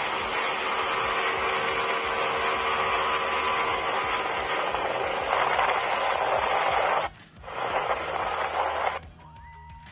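Steady rushing noise of a boat under way, with a low hum beneath it. It cuts out briefly about seven seconds in and drops to a much quieter level near the end.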